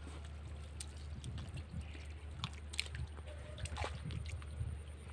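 Hands squelching and splashing in shallow muddy water while groping for fish, with scattered short wet splats.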